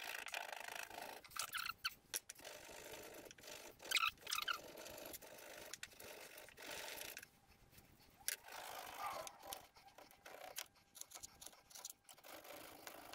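Faint scraping and light knocks of a small paring knife peeling and cutting a piece of fresh ginger root on a wooden chopping board, then the ginger rubbed on a ceramic ginger grater near the end.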